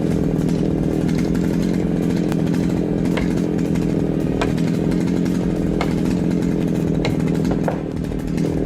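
Chainsaw engine running steadily at a constant pitch, with a few faint sharp ticks over it.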